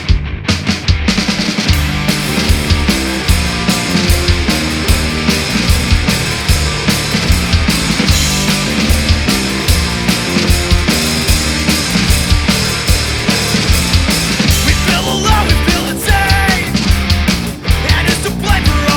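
Loud punk-style rock song played by a full band, with a driving drum beat, bass and dense distorted sound and no vocals transcribed. A wavering high melodic line comes in near the end.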